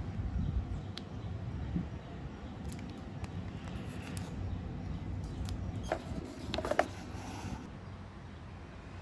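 Plastic wrapping of a self-heating meal's heating pack crinkling and clicking lightly as it is handled, most densely a little past the middle, over a steady low rumble.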